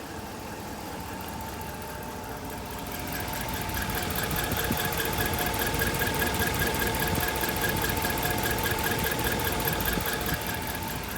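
2010 Dodge Ram 1500's 5.7 L Hemi V8 running with a rapid, even chirping squeak over the engine noise, louder from about three seconds in until near the end. The owner says the chirp stays with the drive belt off and appears once the engine is warm, so the belt-driven accessories are ruled out and the cause is unknown.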